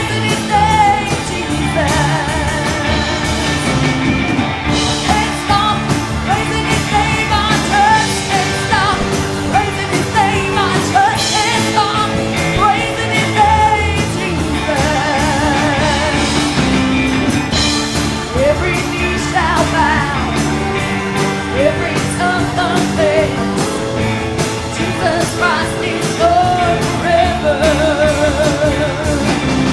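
Church band music with drums and a voice singing, the beat steady throughout.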